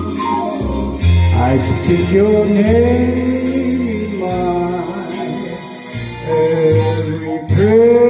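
A man singing a slow song through a handheld microphone over instrumental backing music with a steady bass line, holding long notes.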